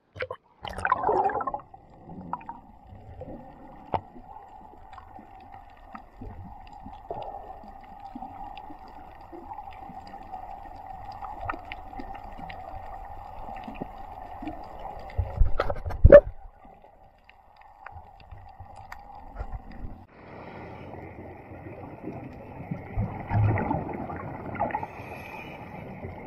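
Muffled underwater sound picked up by a diving camera: a steady hum with scattered clicks and knocks, and one loud knock about 16 seconds in. In the last few seconds it turns to bubbling and rumbling as a scuba diver breathes out through his regulator.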